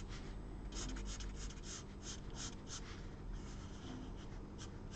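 Fine-tipped felt marker rubbing on card in a quick series of short colouring strokes.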